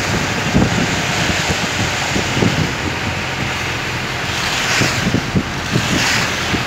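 Wind rushing over a phone's microphone with irregular low buffeting thumps, over the steady noise of a moving vehicle.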